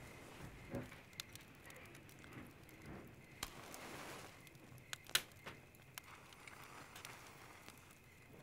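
Quiet room tone with scattered faint clicks and light knocks, the sharpest a little past the middle.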